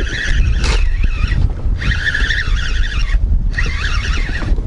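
Fishing reel's drag squealing as a hooked fish pulls line, in three stretches with short breaks about one and a half and three seconds in, over a constant deep rumble of wind on the microphone.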